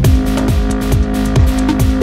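Electronic dance music soundtrack with a steady kick-drum beat under held synth notes.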